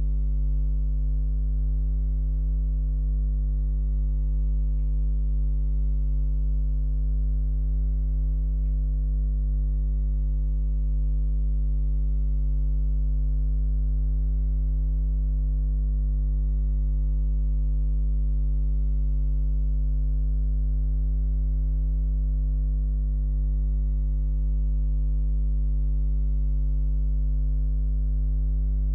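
Steady low electrical mains hum: a deep, unchanging buzz with a few higher overtones.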